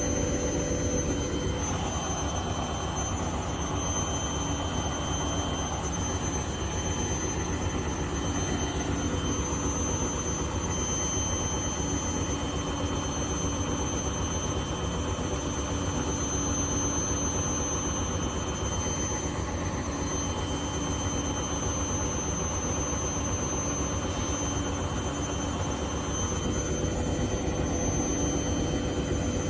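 Hoover One Touch washing machine spinning at speed, a steady rumble with a high whine from the drum bearings. The owner takes this for worn drum bearings that have got worse, now heard even at 1,000 RPM.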